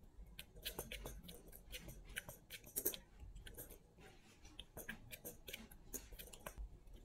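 Faint, irregular clicking and light rattling of a plastic spring cat toy being swatted by a cat's paw, several small knocks a second, with the loudest click a little before the middle.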